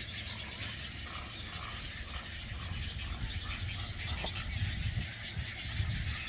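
Nesting egrets in a rookery calling, with a run of short calls about a second in, over wind rumbling on the microphone.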